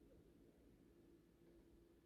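A dog snoring faintly in its sleep, a low, steady sound barely above silence.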